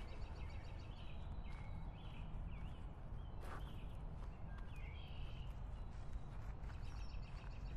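Outdoor park ambience: birds chirping in short, scattered calls over a low, steady rumble.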